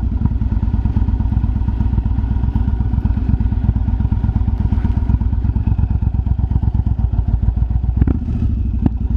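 Yamaha BT1100 Bulldog's air-cooled 1100 cc V-twin engine running steadily through its exhaust, with a rapid, even beat of firing pulses. Two sharp pops come from the exhaust near the end.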